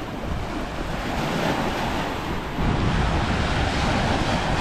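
Small wind-driven waves washing onto a rocky lake shore, with wind buffeting the microphone; the wind rumble grows louder about two-thirds of the way in.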